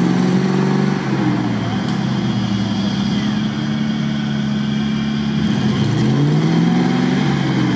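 Jeep Wrangler Rubicon's engine running under load as it works through deep mud. The revs drop in the first second, hold steady, then rise and fall again near the end.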